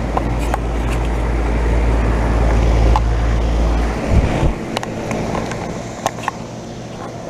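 1998 York 2.5-ton R22 central air-conditioner condensing unit running: steady compressor hum with the rush of the condenser fan. A heavy low rumble of wind on the microphone lasts for about the first four seconds, then drops away.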